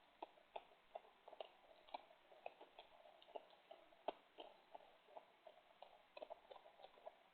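Faint, irregular crunching clicks of a raccoon and an opossum chewing food, a few bites a second.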